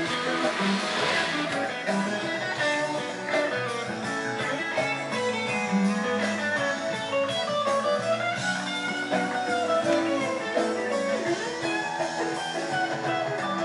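Background music led by guitar, with notes that keep shifting and no pauses.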